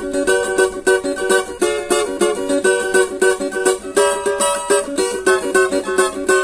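A steel-strung cavaquinho strummed acoustically (unplugged) in a quick, even rhythm, with the chord changing a few times.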